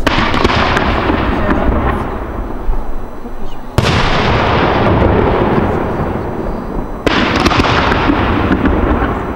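Three large aerial firework shells bursting about three and a half seconds apart, each bang followed by a long rolling echo that fades away.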